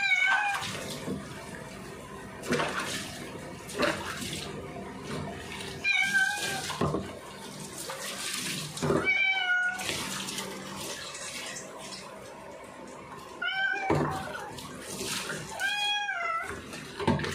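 Siamese cat meowing several times while being washed under a running kitchen tap, over the steady hiss of the tap water.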